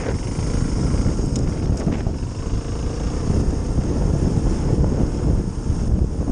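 Single-cylinder four-stroke trail motorcycle engine running steadily while the bike is ridden, heard through heavy wind rumble on the camera microphone. Two faint clicks about a second and a half in.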